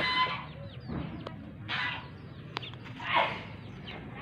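Chickens clucking: three loud calls about a second and a half apart, over small birds chirping.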